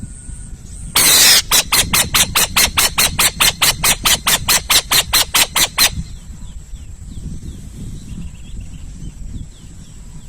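Owl screeching: one long harsh screech about a second in, then a rapid run of about twenty harsh pulses, four or five a second, that stops about five seconds later. A steady low rumble runs underneath, and faint small bird chirps follow.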